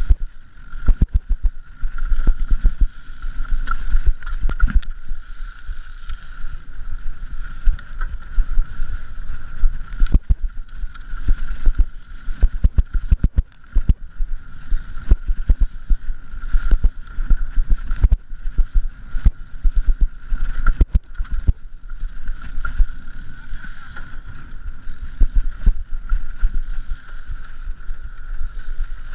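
Wind buffeting the microphone with frequent knocks and rattles, over a steady high-pitched hum.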